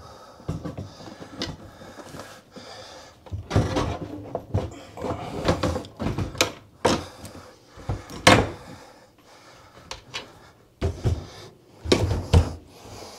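Stainless steel kitchen sink being lifted and set into the countertop opening: scattered knocks, clunks and scrapes of the metal sink against the counter and cabinet, the loudest about seven to eight seconds in.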